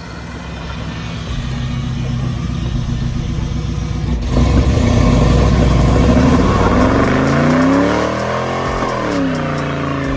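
Car engine accelerating under load, getting louder partway through. Near the end its pitch drops and then climbs again, as with a gear change or easing off and back onto the throttle.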